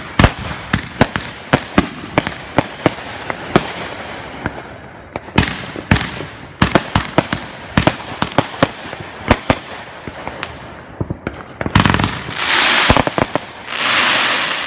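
Fireworks going off: a rapid, irregular string of sharp bangs and pops, then, about twelve seconds in, a dense loud hissing crackle that lasts a couple of seconds.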